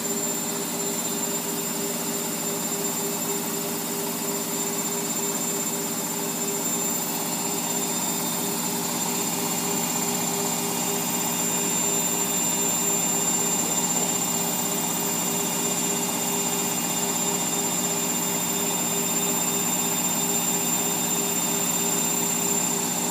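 Whirlpool AWOD 5726 front-loading washing machine on its spin: the drum spinning at high speed with a steady whirring whine made of several held tones, getting slightly louder about halfway through.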